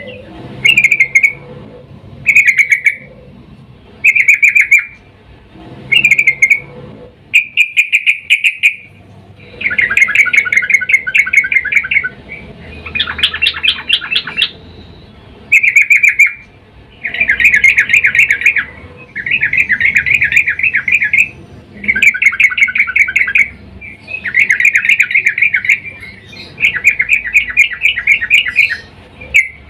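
Yellow-vented bulbul (trucukan) giving repeated bursts of rapid, chattering calls: short bursts at first, then longer ones of one to two seconds from about a third of the way in. The title presents this as a female calling a male in breeding condition.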